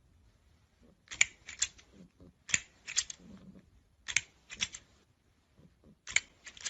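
Light, sharp taps or clicks coming in quick groups of three or four, about one group every one and a half seconds.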